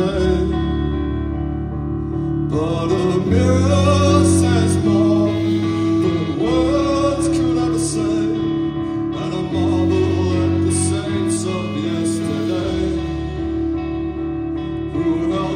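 Live rock band playing: electric guitars, bass and drums, with a lead melody over the top through the vocal microphone.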